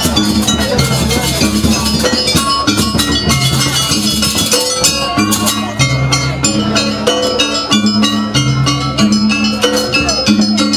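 Jaranan accompaniment: a gamelan-style ensemble of struck metal gongs and percussion playing a loud, steady, repeating pattern.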